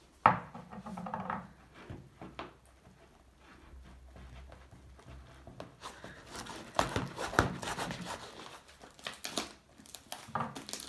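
Homemade slime of green glue and shaving foam being mixed in a plastic bowl and then stretched by hand: a sharp knock about a quarter second in, then scattered sticky clicks and crackles, thickest in the second half.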